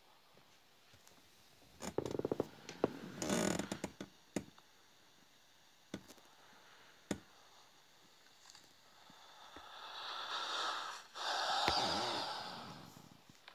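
Handling noise on a wired earphone microphone: a cluster of clicks and rustling, a couple of single sharp clicks, then two long breathy swells of hiss near the end.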